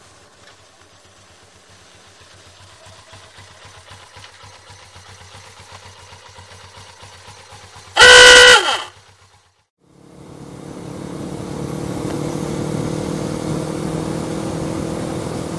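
A Suzuki GS500F parallel-twin motorcycle approaches, faint at first. About eight seconds in there is a loud horn honk of about half a second, several tones sounding together. After a second of silence, the steady engine and wind noise of riding, heard from the rider's helmet, builds up and holds.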